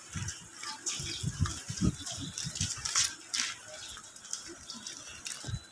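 Street ambience with faint distant voices, and irregular low bumps and rustle from the handheld phone being moved.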